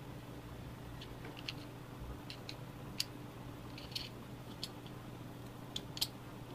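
Scattered small clicks and taps, about a dozen at irregular spacing, from hand work with a screwdriver and a plastic car lighter-socket plug as its terminal screws are tightened and the parts fitted together. A faint steady low hum runs underneath.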